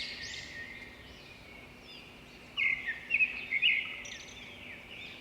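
Birds chirping: a run of quick, repeated arching chirps that fades out within the first second, then a few brighter chirps about two and a half to four seconds in.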